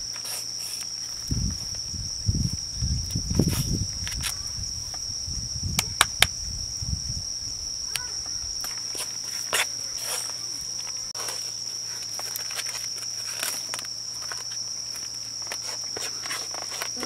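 Insects trilling steadily at one high pitch, with scattered sharp clicks and knocks, two of them loud about six seconds in, and low thumps during the first seven seconds.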